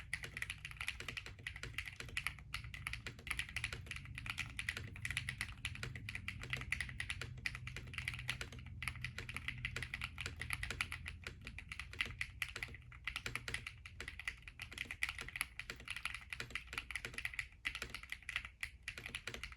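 Continuous fast typing on a Rehouse60 stacked-acrylic mechanical keyboard with Aster switches, PBT blank keycaps and an FR4 plate: a dense run of keystroke clicks with a few short pauses.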